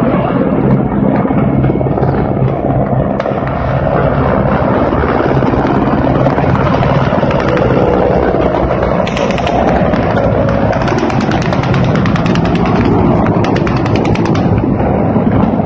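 Mi-8 twin-turboshaft helicopters flying low and close: a loud, steady rotor and engine drone. From about nine seconds in, a fast, even rotor thudding comes through for around five seconds.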